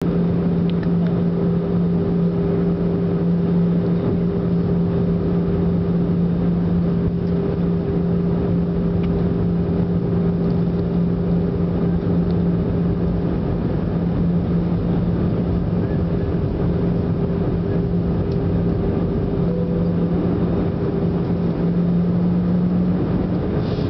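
Steady engine drone of an Airbus A320-family airliner on approach, heard inside the cabin: a constant rush of noise with a steady low hum.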